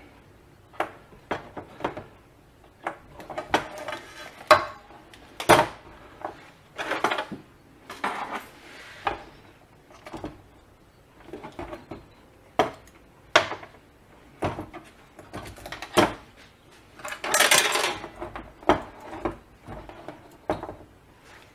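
Irregular light clicks, taps and scrapes of a soldering iron, solder wire and wire ends being handled on a hard work surface while the wire ends are tinned, with a longer scuffing noise about 17 seconds in.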